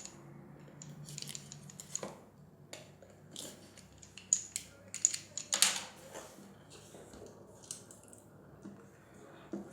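Speaker box and its cardboard packaging being opened and handled by hand: scattered scrapes, rustles and clicks, with a few sharper knocks and a louder scrape about halfway through.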